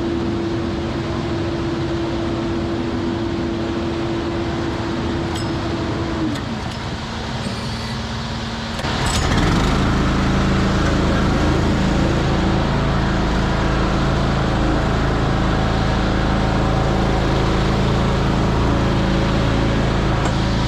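Diesel engine of a concrete mixer truck running. About nine seconds in it speeds up and holds a louder, steady run.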